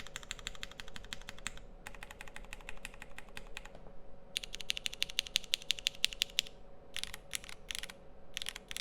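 Typing on a Keycult No. 2/65 mechanical keyboard with lubed Cherry MX Black Hyperglide linear switches, a full aluminium plate and GMK Space Cadet keycaps: three fast runs of keystrokes with short pauses between, then a few slower, separate presses near the end.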